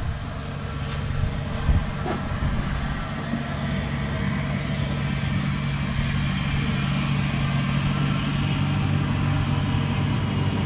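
Steady low mechanical hum of a motor running, with a few faint clicks of hand tools on the bolts in the first couple of seconds.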